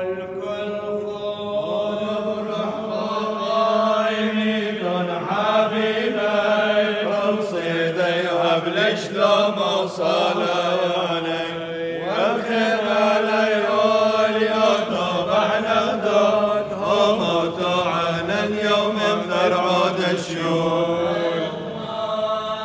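Orthodox clergy chanting a liturgical hymn, with long held notes that step up and down in melody and a brief breath-like break about halfway through.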